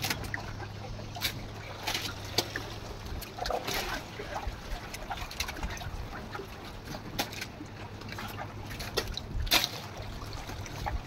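Water lapping and splashing against a small wooden boat's hull, over a steady low hum, with scattered short clicks and knocks.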